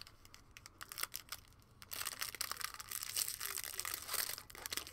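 Foil wrapper of a baseball-card pack being torn open and crinkled by hand: a few light crackles, then dense crinkling from about two seconds in that eases off near the end.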